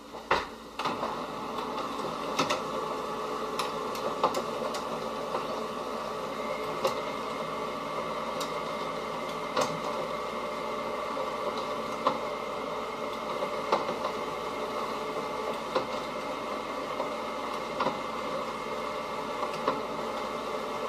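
Samsung CLP-325W colour laser printer's motors and gears running steadily, with light clicks every second or two and a higher tone joining about six seconds in. This is the printer's start-up cycle after a toner cartridge change, which it runs before it is ready to print.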